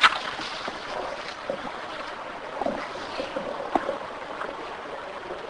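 Steady hiss of room noise, slowly fading, with a few faint short knocks.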